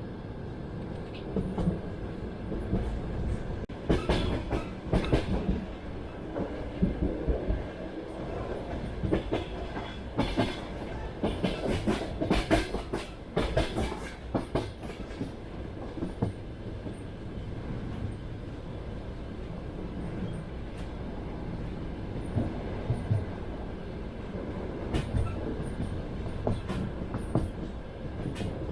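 Passenger train wagon running on the rails: a steady rumble of the wheels, with clusters of sharp clickety-clack over rail joints in the first half, then a smoother run with a few clacks near the end.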